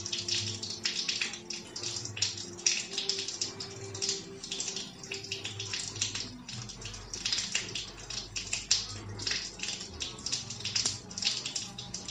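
A dense, irregular wet patter of many small ticks, with a television's speech and music playing low underneath.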